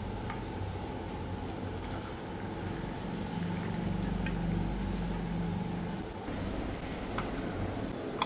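Hot milk tea poured from an aluminium saucepan through a strainer into glass tumblers, with a few light clicks, over a steady low hum.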